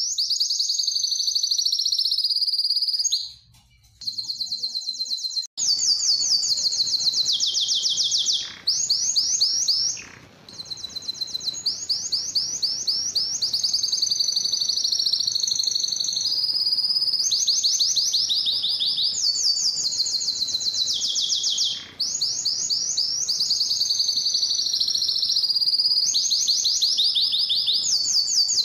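Domestic canary singing: phrase after phrase of rapid trills of fast, evenly repeated notes, mixed with gliding phrases. The song breaks off briefly about four seconds in, then runs on almost without pause.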